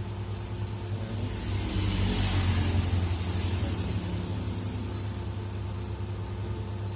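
Kyocera M3860 copier running after power-on, a steady low machine hum, with a louder rushing swell about two to three seconds in.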